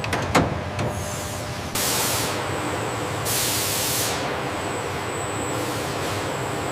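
Factory machinery: a metal clank and a couple of knocks, then repeated bursts of hissing over a steady machine hum.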